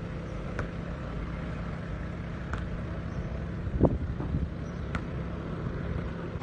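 Steady low rumble of road traffic, with a few faint clicks and one brief louder sound about four seconds in.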